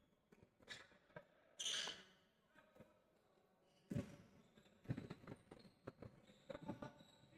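Faint basketball game sounds on an indoor court: a ball bouncing, with scattered knocks of play. The loudest thumps come about four and five seconds in, and a brief brighter hissy sound comes near two seconds in.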